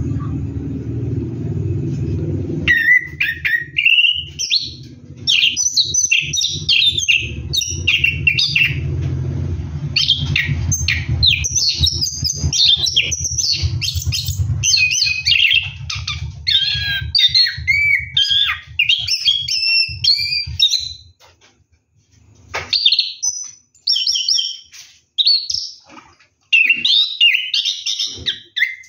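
Orange-headed thrush singing a long, nearly unbroken run of quick, varied warbling phrases, the continuous 'rolling' song that bird keepers prize; the song breaks into shorter bursts about two-thirds of the way through. Under it a low steady hum stops at about the same point.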